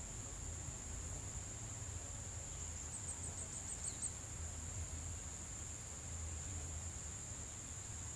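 Insects, crickets by their sound, trilling in a steady high-pitched drone, with a short run of about eight quick chirps about three seconds in, over a low rumble.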